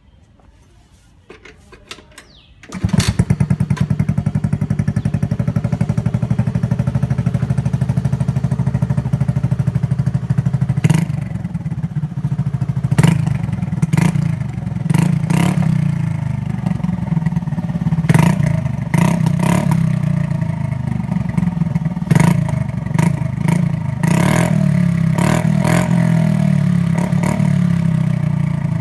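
Honda Activa 125 scooter's single-cylinder four-stroke engine, running through an aftermarket slip-on muffler, starts about three seconds in after a few faint clicks and idles loudly. After about ten seconds the throttle is blipped again and again in short revs.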